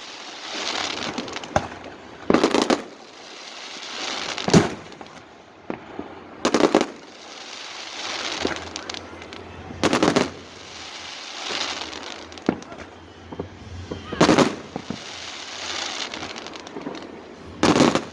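Aerial fireworks bursting: six loud booms a few seconds apart, with a lower noisy background between them.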